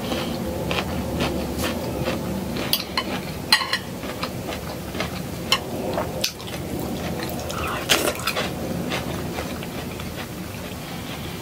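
Metal knife and fork clicking and scraping on a plate while cutting food, in irregular clinks about once a second, with the loudest clatter about eight seconds in. Close-up chewing runs underneath.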